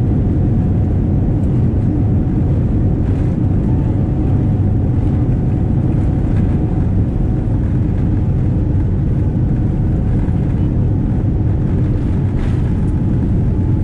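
Cabin noise of a Boeing 787-9 on its take-off roll, heard from inside: a loud, steady rumble of the engines at take-off power and the wheels on the runway, with a few faint knocks.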